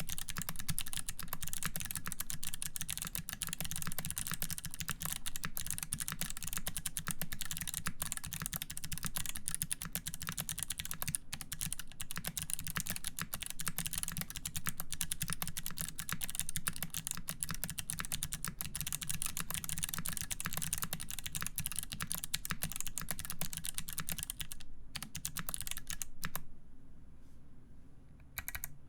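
Fast, continuous typing on a mechanical keyboard with lubed clicky Kailh BOX White switches, GMK keycaps and an aluminium plate: a dense run of sharp key clicks. Near the end the typing thins out to a few separate keystrokes.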